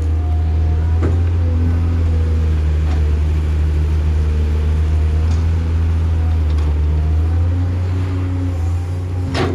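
A heavy diesel construction machine running steadily with a deep engine drone and shifting higher tones. There is a light click about a second in and a sharp knock near the end.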